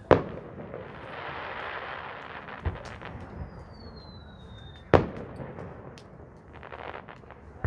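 Aerial firework shells bursting: a loud bang right at the start and another about five seconds in, with a smaller one in between and one more at the very end. Hissing and crackling fill the gaps between the bangs.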